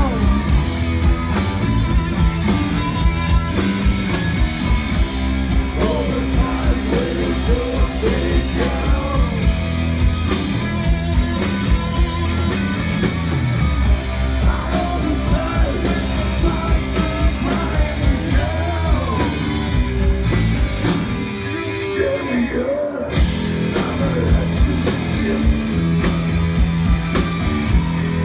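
Rock band playing live: a sung vocal over electric guitar, bass and drums. About 22 seconds in, the drums and bass drop out for a moment before the full band comes back in.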